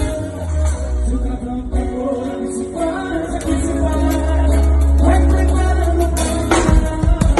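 Live band playing at a soundcheck, with singing over sustained notes and a heavy bass. Sharp drum hits come in strongly near the end.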